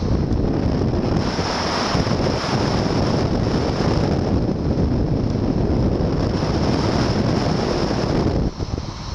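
Airflow of a hang glider in flight buffeting the glider-mounted camera's microphone: a steady, loud wind rush that eases briefly near the end.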